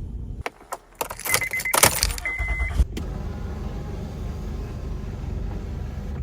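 Inside a vehicle: keys jangling and clicks, with a quick run of electronic beeps and then one longer beep from the car's warning chime. From about three seconds in, the engine runs with a steady low rumble heard from inside the cabin.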